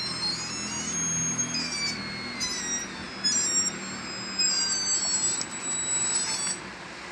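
High-pitched electronic beeping and wailing from a Chuwi Corebook laptop's speakers: shrill tones that jump from pitch to pitch in a warbling, stepping pattern, then cut off suddenly near the end. It is an unexplained fault that the owner suspects is an audio driver or hardware problem.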